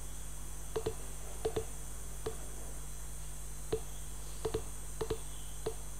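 Computer mouse button clicking, often in quick press-and-release pairs, about seven times at uneven intervals: anchor points being placed with a drawing program's pen tool. A steady low hum runs beneath.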